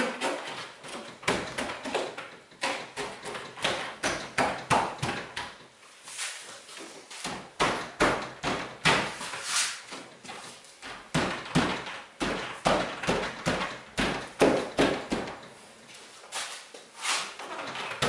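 Glass and rubber seal of a VW Bay window campervan's rear side window being pressed and worked into the body opening by hand: irregular knocks, taps and rubbing, several a second.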